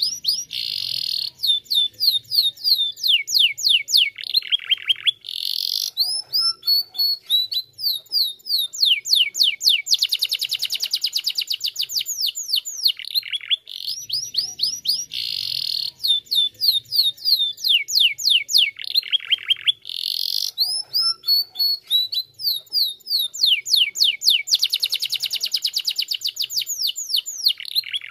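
Domestic canary singing a long, unbroken song of rapid trills and rolls, with fast downward sweeps and short buzzy rattles. The same run of phrases repeats about halfway through.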